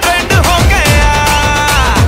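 Upbeat dance music with a heavy bass beat and a long note held through the middle.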